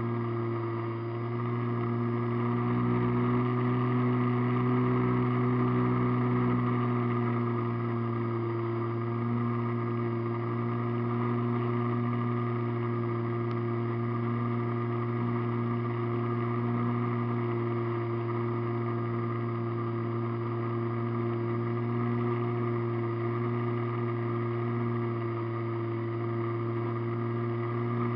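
Radio-controlled airplane's motor and propeller heard from a camera on board the plane, a steady droning hum at cruise power, a little louder a few seconds in.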